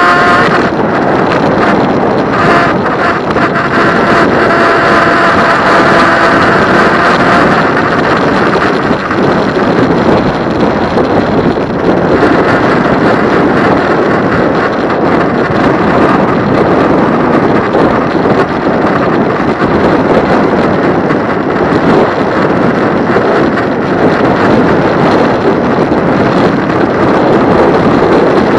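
Wind rushing over the microphone of a moving e-bike, a steady loud noise with no let-up. A pitched horn tone cuts off right at the start.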